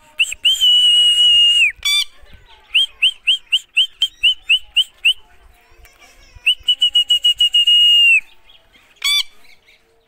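Indian ringneck parakeet whistling: a long held whistle, then a run of about ten short rising whistles at roughly four a second, then another long held whistle. Two short harsh calls come in between, about two seconds in and again near the end.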